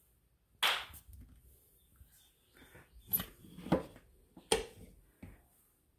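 Blender jar and lid being handled on the stopped blender's motor base: five or six separate sharp knocks and clunks as the lid is worked off and the jar is lifted from the base.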